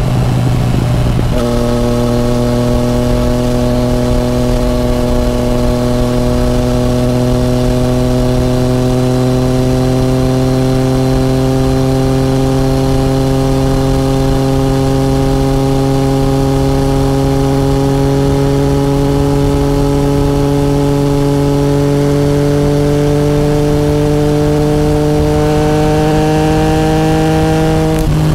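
Yamaha FZ-09's three-cylinder engine pulling steadily at road speed, its note climbing slowly as the bike gains speed in one gear, with wind rush over it. The note changes abruptly about a second in and drops away near the end.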